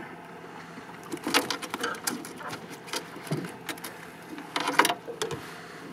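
Irregular clicks, rattles and knocks of a flathead being handled in a landing net in a small boat while the hook is worked out of it, the busiest cluster about five seconds in.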